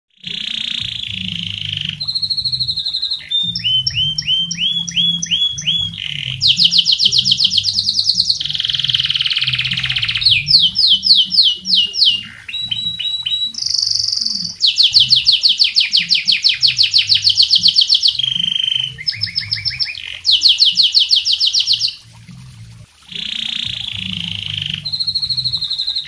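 Domestic canary in full song: a long, continuous run of rapid trills and quick repeated high chirps, phrase after phrase, with a short pause near the end.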